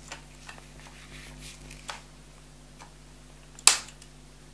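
Wire cutters snipping through a PC power supply's output lead with one sharp snap about three and a half seconds in. A few lighter clicks of the cutters and wires being handled come before it.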